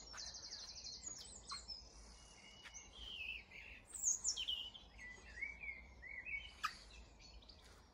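Songbirds singing in a garden: a fast, high repeated trill near the start, then chirping and warbling phrases, the loudest about four seconds in, all faint.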